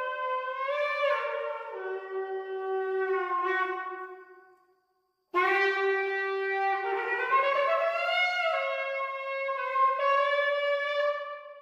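A 36-inch shofar blown in long, loud blasts whose pitch jumps between a few notes. The first blast fades out about four and a half seconds in, and after a short pause a new blast starts sharply and carries on until near the end.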